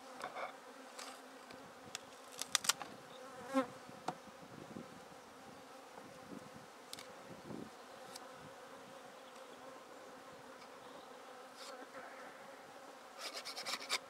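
Honeybees buzzing steadily around an opened hive. Over it, a few sharp snaps as long-handled loppers cut through the wooden bottom bar of a hive frame, about two and a half and three and a half seconds in, and a cluster of clicks near the end.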